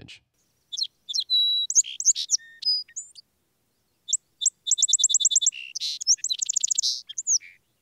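Song sparrow singing two songs in a row, each a string of clear, sharp notes running into fast, rapid-fire trills; the second song starts about four seconds in and holds a long, quick trill.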